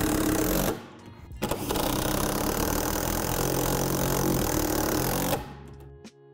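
Cordless power driver running, driving self-tapping screws through the collar into the tetherball pole: a run that stops under a second in, then a second run of about four seconds. Background music takes over near the end.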